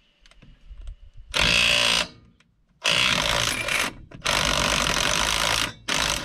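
Impact wrench on a truck's wheel lug nut, run in four bursts, each under about a second and a half, with short pauses between.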